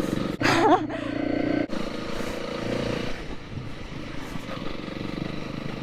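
Honda CRF300L trail bike's single-cylinder engine running steadily at low speed.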